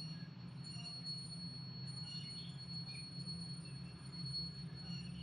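Industrial sewing machine running with a low, steady hum and a thin high whine, as a blouse seam is stitched.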